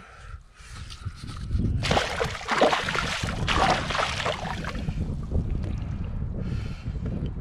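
A rainbow trout thrashing in a landing net in shallow water, splashing hard for two or three seconds starting about two seconds in, then settling. Wind rumbles on the microphone throughout.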